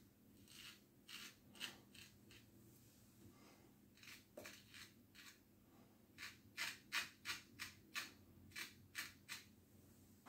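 Razor blade scraping through lathered stubble in short, quick strokes. There are a few strokes early on, then a fast run of about ten, roughly three a second, in the second half.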